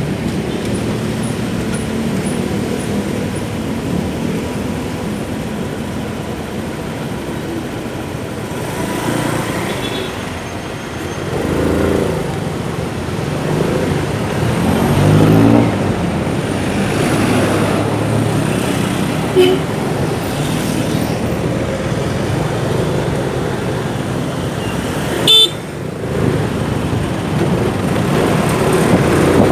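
Motorcycle engine running in city traffic, its pitch rising twice as it accelerates, with traffic noise all round. A horn toots briefly near the end.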